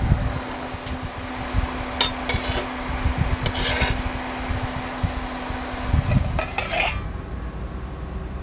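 Metal tongs clinking and scraping against a glowing lump of charcoal on a glass-ceramic hob, in a few short bursts over a steady fan hum. The hum stops about seven seconds in.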